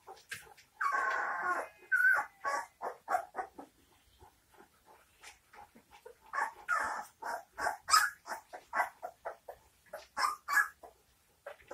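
Litter of 19-day-old St. Bernard puppies whimpering and squeaking: a rapid string of short, high cries, with one longer cry about a second in and busier clusters around six to eight seconds and again near ten seconds.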